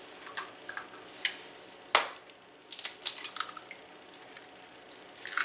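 Eggs being cracked and handled over a small glass bowl: a few sharp taps and shell clicks, the loudest one about two seconds in and a quick cluster just after.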